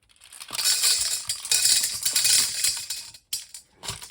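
A handful of small plastic Commodore VIC-20 keyboard keys poured into a colander, a dense clatter lasting about two and a half seconds, then two short rattles as the last few drop in.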